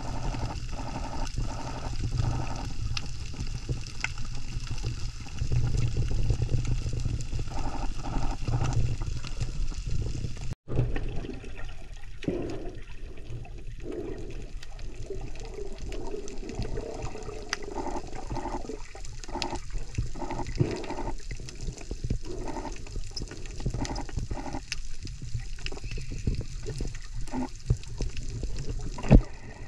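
Underwater audio from a camera submerged in the sea: a steady low, muffled rumble of moving water with irregular gurgling and bubbling. It drops out for an instant about ten seconds in.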